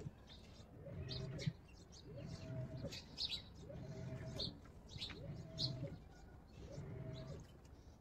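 Samsung WA70BG4545BD top-load washing machine agitating a sudsy load: its digital inverter motor whines up and down about once every 1.3 s as the pulsator swings back and forth, under a low rumble, with the water sloshing and splashing in the drum.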